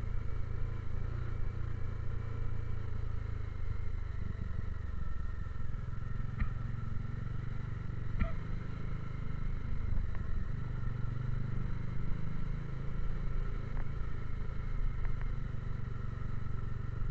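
Motorcycle engine running steadily at low speed while riding over a rough dirt road, with a couple of short sharp knocks partway through.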